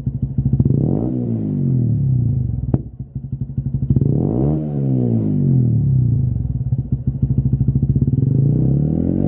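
Honda CBF125's single-cylinder four-stroke engine running through a Lextek RP1 aftermarket silencer, idling between throttle blips. The revs rise quickly and fall back about a second in and again about four seconds in, then start rising again near the end.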